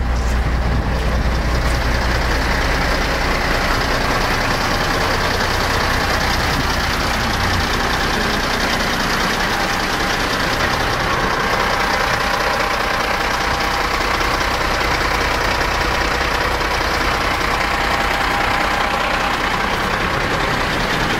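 Kenworth truck's diesel engine running steadily as the truck drives slowly. Its low rumble eases about seven seconds in.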